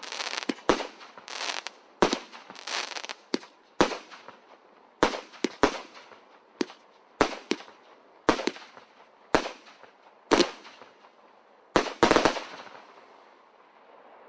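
Total FX 'Oceanic' multi-shot firework cake firing: a string of sharp bangs, at first several a second and then thinning to about one a second. The last pair comes about twelve seconds in, and the sound then dies away as the cake finishes.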